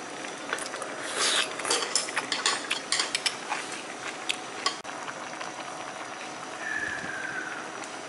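Chopsticks and a metal spoon clicking and clinking against ceramic dishes: a quick run of light clinks through the first half, then only the steady room hiss.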